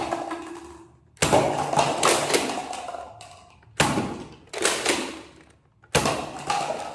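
Toy gun fired four times: each shot is a sharp crack that fades away over about a second, the second and third close together.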